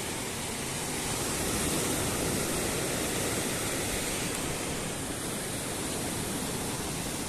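Steady rushing beach ambience of gentle surf washing on the shore, swelling slightly about two seconds in.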